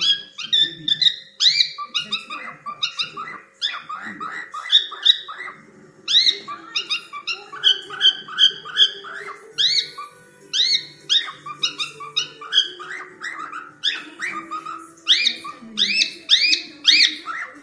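Cockatiel chirping, a rapid string of short, arched high calls, several a second, with brief gaps.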